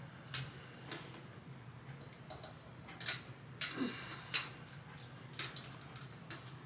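Scattered small clicks and taps of hardware being handled while fitting a ceiling fan, with a brief metallic ring about halfway through.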